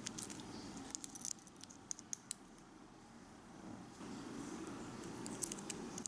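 A tiny metal spoon clicking and scraping against miniature glass dishes: scattered light ticks in the first two seconds while a powder is spooned into a small glass bowl, and another quick cluster near the end as ketchup is scraped out of a tiny cup, over a steady low room hum.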